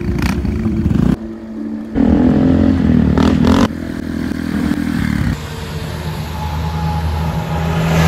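A string of short clips of scooter and motorcycle engines running and revving. The sound switches abruptly every second or two as one clip cuts to the next.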